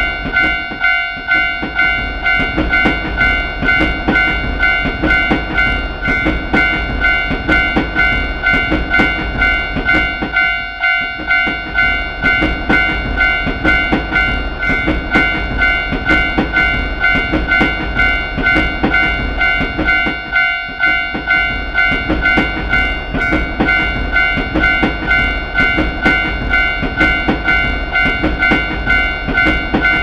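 Japanese railway level-crossing warning bell ringing with rapid, evenly repeated "kan-kan" strikes, over the rumble and wheel clatter of trains passing through the crossing. The sound briefly dips about a second in, again near the middle and about two-thirds through, between trains.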